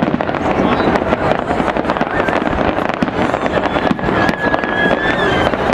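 Fireworks display: a dense, unbroken barrage of aerial shells bursting and crackling, many reports overlapping, as in a finale-style volley.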